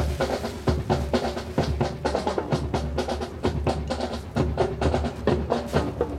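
Marching band music with prominent drums: snare and bass drum strikes in a steady beat over sustained band tones.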